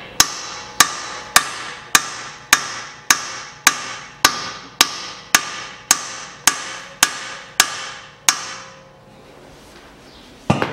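A hammer strikes a steel screwdriver wedged into the clamp slot of a Volkswagen Tiguan's front steering knuckle, spreading the clamp to free the knuckle from the strut. There are about fifteen ringing metal blows, roughly two a second, then a pause and one more knock near the end.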